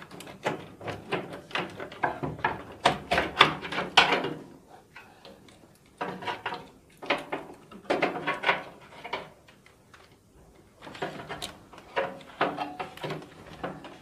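Hands working wires and push-on connectors off a microwave oven's door interlock switches: a run of small clicks, rattles and scrapes against the metal cabinet, in three bursts with short pauses between.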